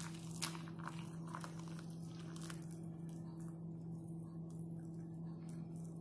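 Water poured from a kettle into a mug, with crackly splashing that is strongest in the first two or three seconds and then thins, over a steady low hum.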